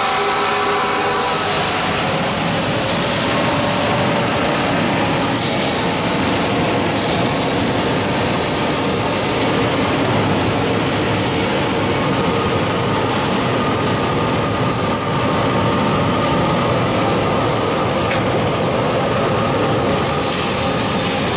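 A 12 kg drum coffee roaster running with a loud, steady mechanical noise. About two seconds in the noise thickens as the cooling tray's fan and stirring arms are switched on, and later roasted beans pour from the drum into the cooling tray.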